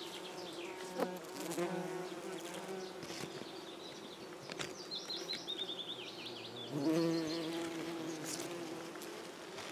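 Bumblebees buzzing around linden blossom: a steady droning hum, swelling louder about two-thirds of the way through as a bee passes close.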